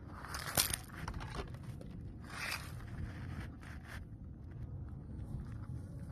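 Strong wind buffeting the microphone, a steady low rumble with a few rustling gusts or handling scrapes, the sharpest with a click about half a second in.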